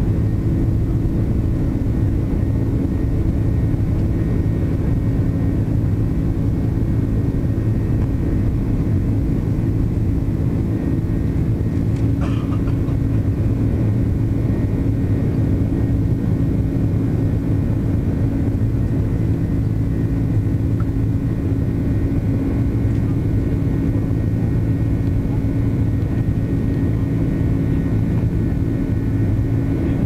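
Steady drone of an airliner's jet engines during the climb after takeoff, heard inside the cabin from a window seat over the engine: an even rushing noise with a low hum of several steady tones. A brief faint click about twelve seconds in.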